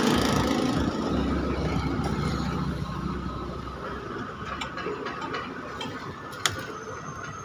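Mechanical clicking and rattling, with a low hum that fades out partway through and a sharp click near the end.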